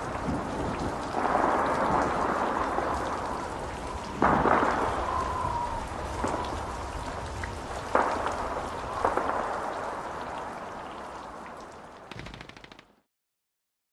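Steady rain hiss with a few sudden louder bursts that die away, fading out to silence near the end.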